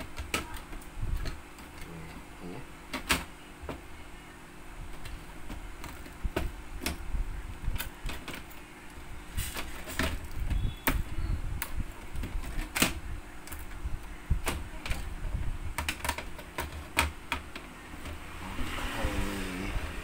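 Irregular clicks and knocks of a small screwdriver and plastic and metal parts as a Dell laptop is taken apart, ending with the motherboard being lifted out of its plastic base.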